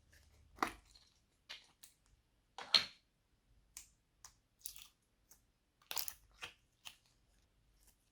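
Glossy slime being pressed and mixed by hand, giving about a dozen short, irregular sticky clicks and crackles, the loudest about half a second and near three seconds in.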